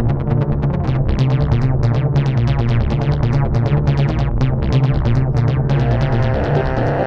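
Electronic background music: a synthesizer over a fast, even pulse and a held bass note.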